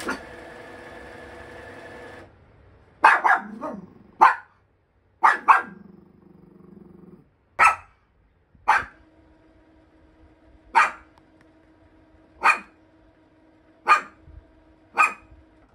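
Small white dog barking repeatedly: about a dozen short, sharp barks a second or two apart, some in quick pairs. A steady hum runs under the later barks.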